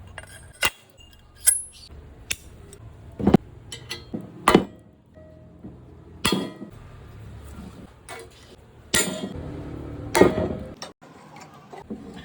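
Metal tools and bike parts being handled: irregular sharp clinks and knocks, a dozen or so, some louder than others.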